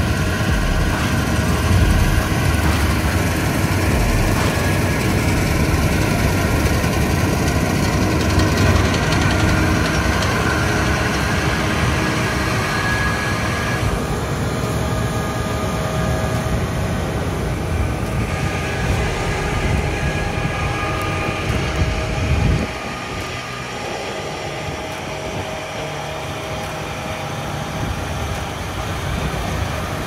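John Deere X9 combine with a MacDon draper header running while harvesting: a steady engine and machinery drone with some whine in it. About three-quarters of the way through, the deep rumble drops away suddenly and a lighter, quieter machine sound carries on.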